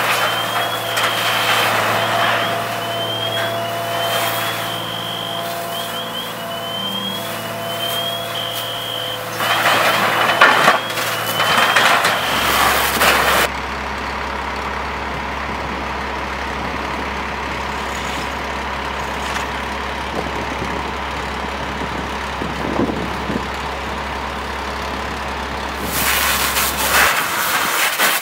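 Heavy machinery engine running with a warning alarm giving a short rising chirp about once a second, from the material handler working the debris. About ten seconds in, a few seconds of loud rushing noise cuts in, followed by a steady low engine drone.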